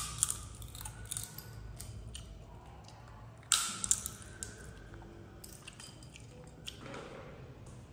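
Sharp clicks and cracks of a young macaque cracking sunflower seed shells with its teeth, the loudest pair about three and a half seconds in, with softer clicks of seeds shifting on the plate.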